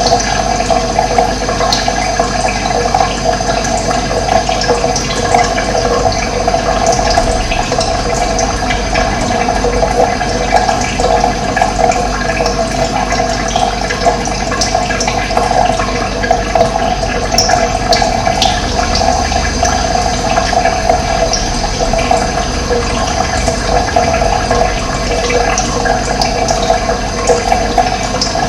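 Running water flowing steadily, an even unbroken rush.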